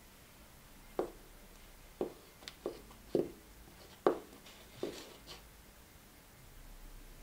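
Heels and soles of black block-heeled pumps knocking on a hard floor as the wearer shifts and steps, about eight sharp, irregular knocks.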